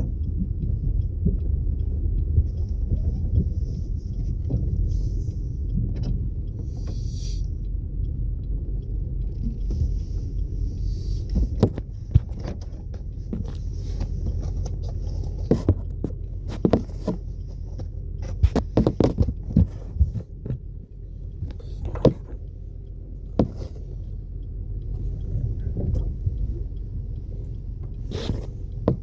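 Steady low rumble of engine and tyre noise inside the cabin of a moving Chevrolet Malibu, with scattered sharp knocks and clicks through the second half.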